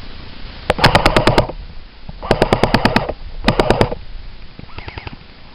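Airsoft automatic rifle firing full-auto: three loud bursts of rapid shots, the last one shorter, then a fainter short burst near the end.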